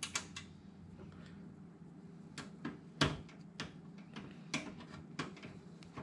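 Light, irregular metal clicks and taps as a steel slot-retaining bracket is fitted back into place on a PC case, with one sharper knock about three seconds in.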